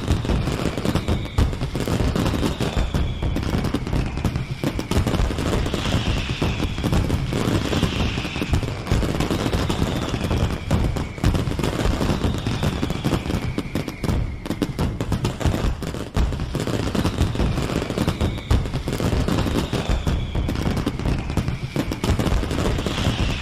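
Fireworks sound effect: a dense, continuous barrage of bangs and crackling, with faint short falling whistles every couple of seconds.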